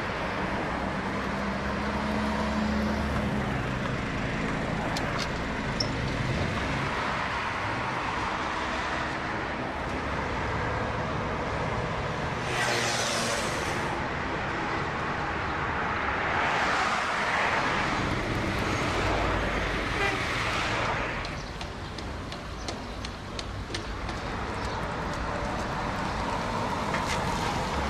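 Street traffic: cars driving past with engine hum and tyre noise, swelling louder as vehicles pass about halfway through.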